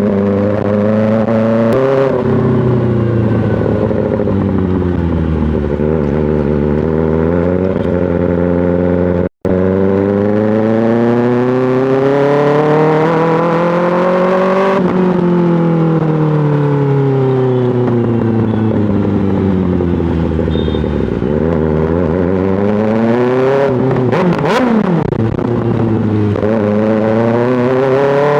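2024 Kawasaki ZX-6R's inline-four engine through an M4 GP slip-on exhaust, repeatedly revving up and dropping back off in stop-and-go riding. The sound cuts out for an instant about nine seconds in.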